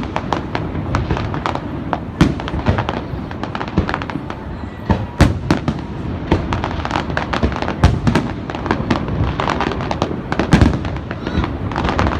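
Fireworks going off: a dense, irregular crackle of bangs, with louder booms standing out every few seconds.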